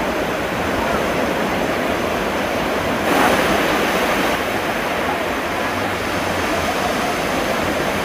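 Sea surf washing up on a beach: a steady rush of waves, with one louder wave breaking about three seconds in.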